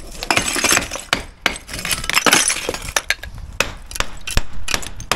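Loose bricks clinking and clattering as they are pulled out of a cavity wall and dropped onto broken brick rubble, with sharp, irregular knocks of a hand hammer against the brickwork.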